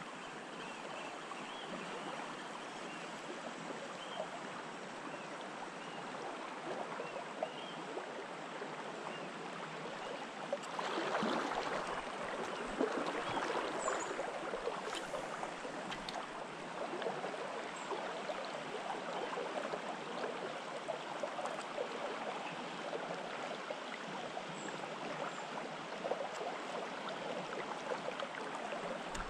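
Shallow river running over stones: a steady rush of flowing water that swells louder for a couple of seconds about eleven seconds in.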